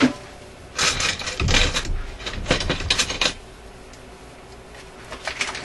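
A run of clacks, clicks and scrapes of hard objects being handled, starting about a second in and lasting a couple of seconds, then a few faint clicks near the end.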